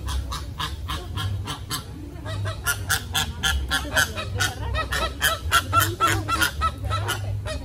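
A flock of American flamingos honking: many short, nasal calls in quick succession, about three or four a second, getting busier after the first couple of seconds.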